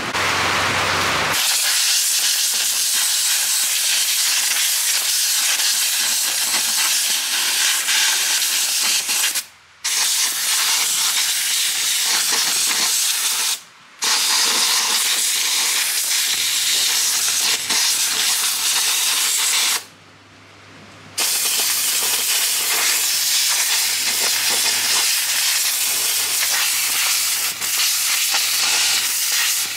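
Compressed-air blow gun hissing as it blows dirt off the top of a diesel engine around the injectors before they are pulled. The loud, steady hiss starts about a second and a half in and breaks off three times briefly.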